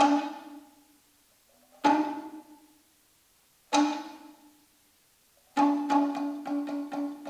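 Talking drum (tama) struck with a stick: three single ringing strokes about two seconds apart, each dying away, then a quick run of strokes from about five and a half seconds in.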